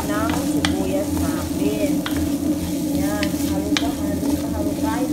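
Diced onions sizzling as they fry in oil in a pot, stirred with a spatula that gives several sharp clicks and scrapes against the pot. A steady low hum runs underneath.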